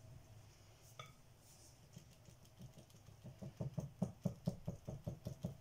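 Silicone-coated whisk stirring flour into a butter-and-milk mixture in a mixing bowl, starting a brioche-style dough. One light clink about a second in, then quick, faint, rhythmic strokes from about halfway.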